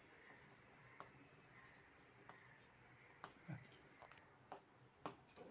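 Near silence with a few faint scratches and light taps of a drawing tool on paper.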